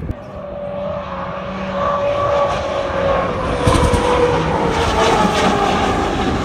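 H1 Unlimited hydroplane's turbine engine running at racing speed as the boat passes: a steady jet-like whine over a roar, slowly falling in pitch and growing louder over the first few seconds.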